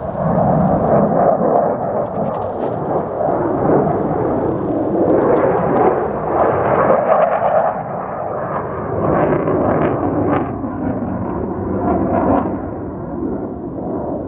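Jet aircraft flying overhead: a loud, rough engine noise that swells and eases several times as the plane passes.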